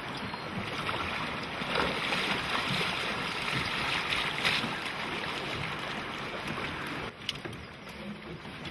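Steady rush of river water with wind on the microphone. The sound drops off a little about seven seconds in, and a light click follows.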